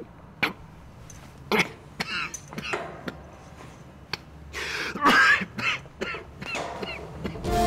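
A man coughing and clearing his throat in a string of short bursts, the hardest coughing a little after five seconds in.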